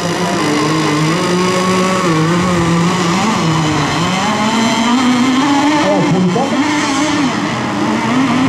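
Radio-controlled racing boat engines running, their pitch rising and falling as they throttle up and down, with one climbing steadily through the middle.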